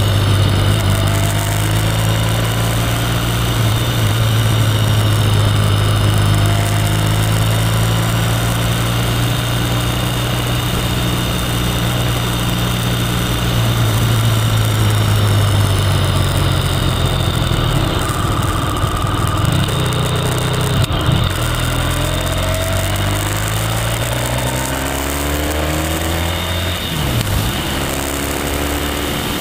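Motorcycle engine running steadily at a cruise, heard from a camera mounted on the bike, with a hiss of wind and road noise. In the last third the revs climb, then drop sharply near the end before climbing again.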